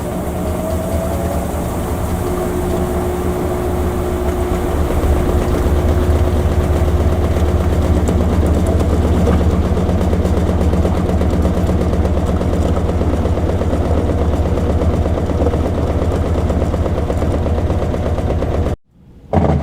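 Washing machine running: a loud, steady low hum with a fast rattle. It cuts off abruptly near the end.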